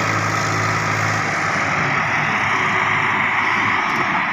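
Swaraj 855 tractor's three-cylinder diesel engine running under load as it pulls a loaded trolley through a field. Its steady low hum loosens about a second in.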